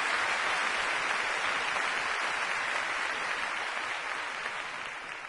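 Steady rushing hiss of noise, like static, starting abruptly and beginning to fade near the end.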